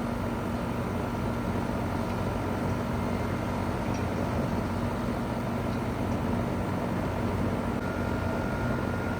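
2001 Goodman CPLE30 2.5-ton heat pump running steadily in cooling mode: the Copeland reciprocating compressor's steady hum under the outdoor fan's even whoosh, with a faint high whine.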